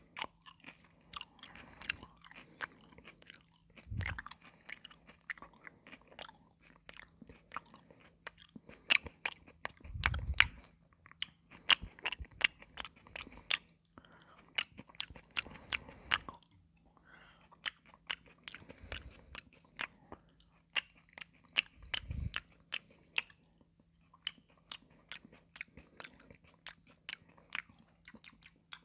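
Close-miked crunching and chewing of raw cucumber: many sharp, irregular wet crackles, with a few dull low thuds in between.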